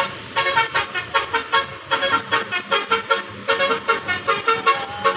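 Bus telolet basuri horn playing a fast melody of short, clipped notes, about four or five a second.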